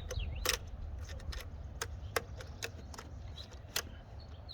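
About a dozen light, irregular clicks and taps, like small metal objects being handled, over a faint steady low hum.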